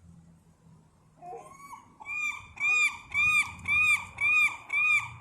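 Gull giving a long call: after a few softer notes, a steady series of loud, arched, yelping calls about two a second begins about two seconds in. It is a territorial call at another gull that has just landed nearby.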